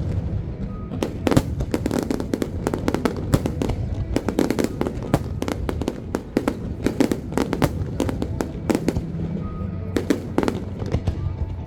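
Aerial fireworks display: a dense run of sharp cracks and bangs from bursting shells, coming in quick irregular clusters, over a steady low rumble.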